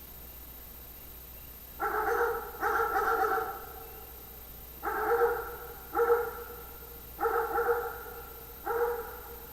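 A voice giving six short bark-like calls with a clear pitch, each about half a second long, in three rough pairs.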